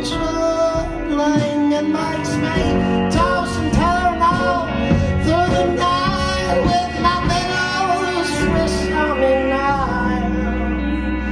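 Live band music: drums and bass under a wavering, bending melody line, with no clear sung words.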